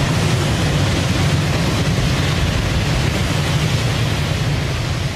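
A steady, loud rushing noise with a heavy low hum underneath, without any clear tune or pitch.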